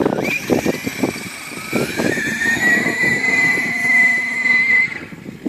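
Electric motor of a Traxxas E-Revo RC truck whining at full throttle, the high-pitched whine rising as the truck speeds up, holding steady and then cutting off near the end. Scattered knocks and rushing noise in the first seconds.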